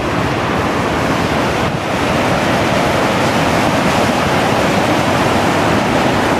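Lower Yosemite Fall's water pouring down, a loud, steady rush of falling water.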